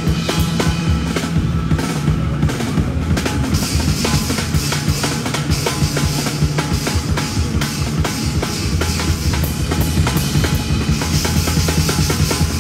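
Drum kit played hard in a live rock band, close-miked from the drum riser: dense kick and snare strikes over a steady low bass line, with cymbals washing in about three and a half seconds in and again near the end.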